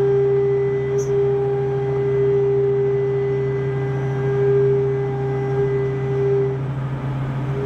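Spinner U-620 CNC machining center running: a steady low hum with a steady whine above it, and a short tick about a second in.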